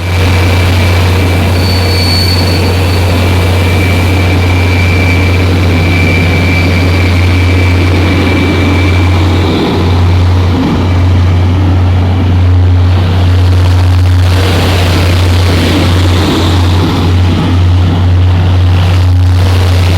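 Network Rail rail-grinding train running: a loud, steady low drone with a hiss over it, and a thin high whine that fades out about halfway through.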